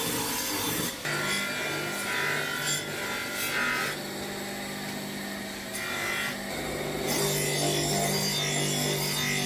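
Bench grinder motor running with a steady hum while a steel cleaver edge is held against its spinning wheels for sharpening: scraping on a 600-grit stone wheel, then quieter honing on a leather wheel. The sound changes abruptly a few times.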